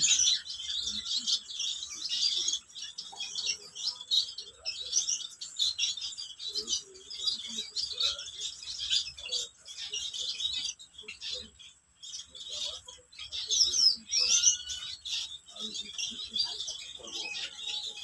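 A large collection of caged exotic finches chirping and calling all at once, a dense, continuous chatter of many small high-pitched calls. The chatter briefly drops out about twelve seconds in.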